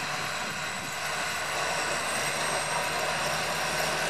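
Wheel loader's diesel engine running steadily, with a steady high whine over the engine note. It grows a little louder about one and a half seconds in.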